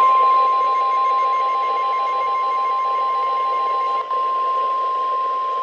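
NOAA Weather Radio 1050 Hz warning alarm tone: one steady, high, unbroken beep over radio hiss, with a brief dropout about four seconds in. The tone signals that an urgent warning, here a severe thunderstorm warning, is about to be read.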